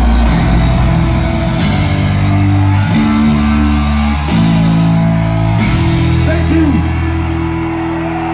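Loud live music through an arena sound system, heard from the crowd. Heavy sustained bass chords change about every second and a quarter, each change hit with a cymbal-like crash, easing slightly near the end.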